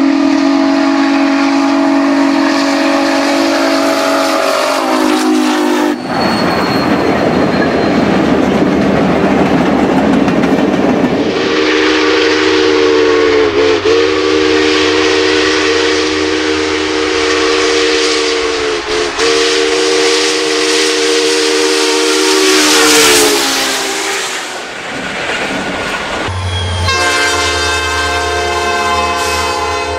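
Union Pacific steam locomotive whistle blowing: one blast over the first few seconds, then a rushing noise, then a long blast held for about twelve seconds with two brief dips. Near the end a diesel locomotive horn sounds over a low engine hum.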